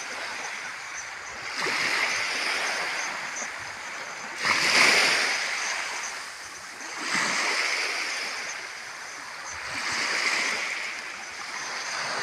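Small sea waves washing onto the shore, rising and falling in swells about every three seconds, with a louder splash about four and a half seconds in.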